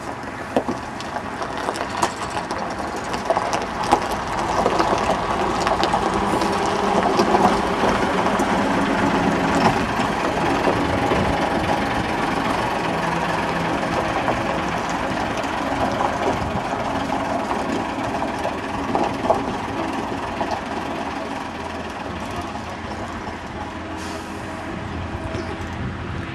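Bristol VR double-decker bus's Leyland diesel engine driving off. It grows louder over the first several seconds, holds steady, then slowly fades toward the end, with a few sharp clicks along the way.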